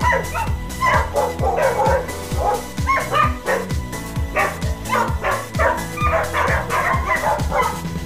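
Dogs barking and yapping in quick, irregular bursts, set off by a toy remote-control truck, over music with a steady thumping beat.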